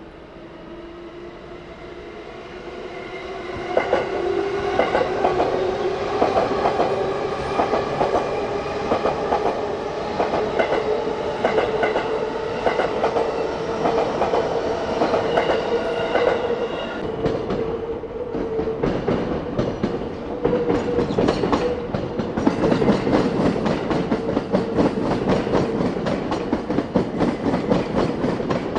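Keiyo Line E233-5000 series electric train pulling away. Its traction motors give a whine that rises slowly in pitch as it gathers speed, then holds steady. From about four seconds in, its wheels click over the rail joints, faster and denser after about seventeen seconds.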